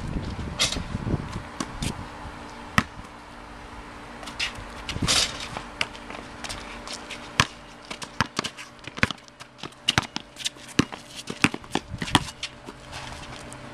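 Basketball play on an outdoor concrete court: a string of sharp, irregular thuds from the ball bouncing and from sneakers stepping, with a few short scuffs. The thuds come thickest in the second half.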